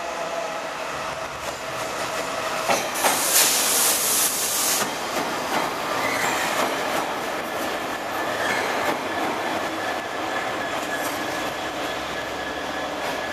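Freightliner Class 70 and Class 66 diesel locomotives, coupled and running light, passing close by with engines running and the clatter and squeal of wheels on rail. A loud hissing rush lasts nearly two seconds, starting about three seconds in as the lead locomotive draws level.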